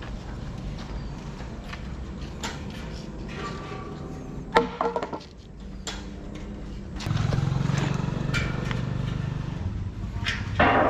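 Clanks and rattles of a steel sliding gate being pushed and handled, with a sharp metallic bang about halfway through. A steady low rumble sets in for the last few seconds.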